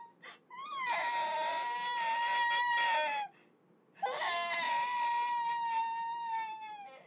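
A baby crying on waking from a nap: two long, high wails held at an almost steady pitch, with a short break between them about three seconds in.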